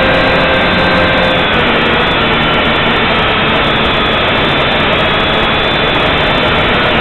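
JJRC H8 mini quadcopter's motors and propellers whining steadily over a loud rushing noise, heard close from the drone's own onboard camera; the pitch dips slightly about a second and a half in.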